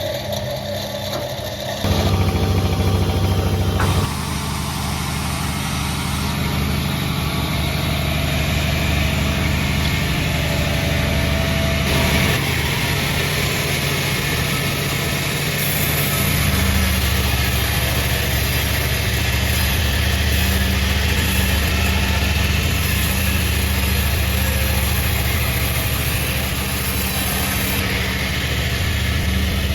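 Sawmill machinery running with a steady engine hum. The hum grows louder for about two seconds near the start, then shifts in pitch a few times.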